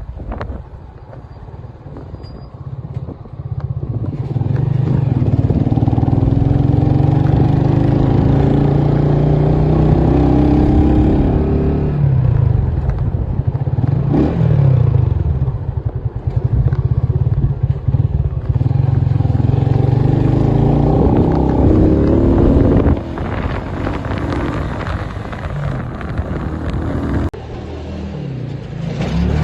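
Motorcycle engine running under way, its pitch climbing and dropping again and again as it accelerates and changes gear. It eases to a quieter run in the last few seconds.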